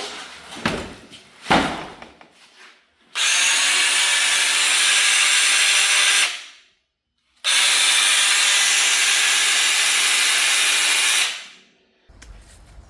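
A few handling knocks, then a Duratech 12-volt battery mini pruning chainsaw run twice for about three seconds each. Its electric motor and chain whine at a steady pitch, start abruptly on the trigger and wind down after each release.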